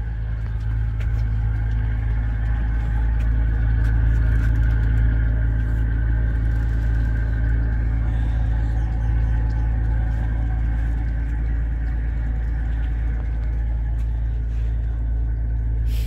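Trawler's inboard engine idling, a steady deep rumble that grows a little louder a few seconds in.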